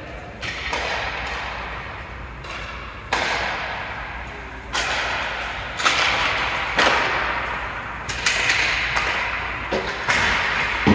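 Ice hockey play: skates scraping and carving the ice in repeated hissing strokes, each starting sharply and fading, with sharp knocks and thuds from sticks, puck and boards.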